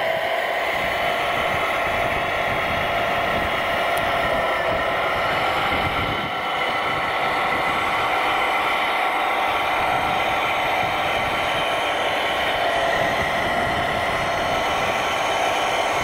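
Radio-controlled scale Hidromek 640WL wheel loader running: a steady mechanical whine made of several held tones over a low rumble.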